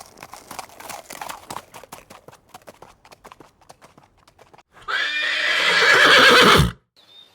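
Horse hooves clip-clopping in a quick, uneven run of sharp knocks that gradually fades. Then a loud horse whinny lasts about two seconds near the end.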